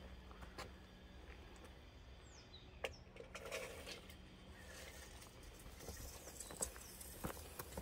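Quiet footsteps walking over the ground, with a few soft scattered clicks. A short, faint downward bird whistle comes about two and a half seconds in.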